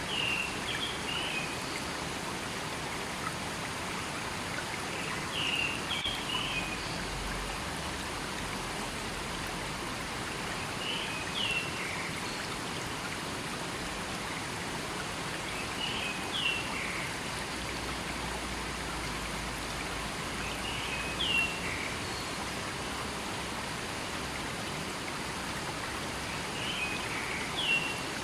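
Steady rush of a flowing river, with a bird repeating a short call phrase about every five seconds.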